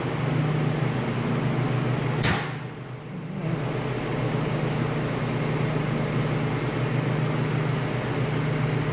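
A single sharp metallic clack about two seconds in as the handle on the band saw's upper wheel assembly is worked, over a steady low room hum.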